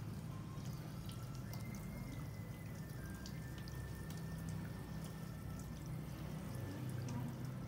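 Water dripping, faint and irregular, over a steady low hum.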